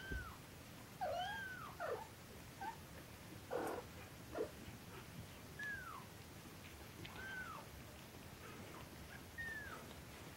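Norwegian Forest Cat kitten mewing: a string of short, high mews spaced a second or two apart, each rising then falling in pitch, with a couple of rougher, noisier cries near the middle.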